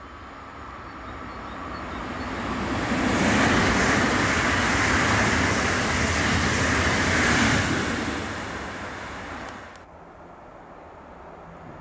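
Two coupled electric multiple-unit regional trains passing at speed: the rush of wheels on rail builds, stays loud for about four seconds as the train goes by, then fades. Near the end it cuts abruptly to a quieter steady background.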